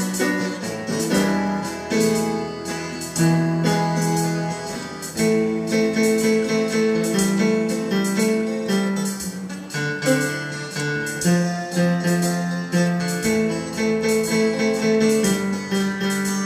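Instrumental rock music: an electronic keyboard played with guitar, chords and melody notes in a steady flow.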